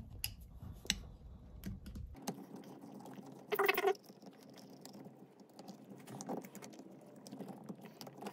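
Light clicks, taps and scratches of a screwdriver and small metal parts as screws are driven into the top of a Solex 34 PICT carburetor. A short, louder noise comes about three and a half seconds in.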